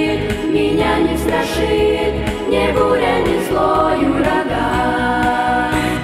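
A youth vocal group singing a Russian-language Christian song in harmony into microphones, with instrumental accompaniment carrying a steady bass line and beat.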